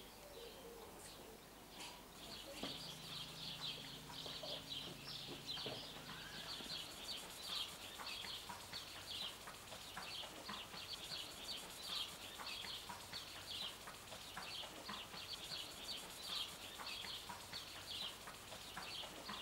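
Small birds chirping over and over in short, high notes. A faint low hum sounds for about three seconds a few seconds in.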